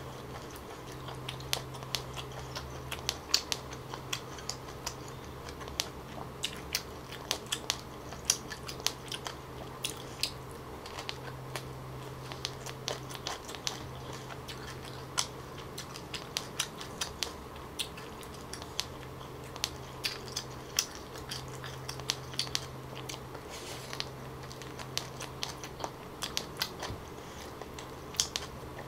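Close-miked chewing of a chả cuốn, a roll of fish cake, duck egg and fresh greens in thick rice paper: many small wet clicks and smacks of the mouth, irregular and continuous, over a steady low hum.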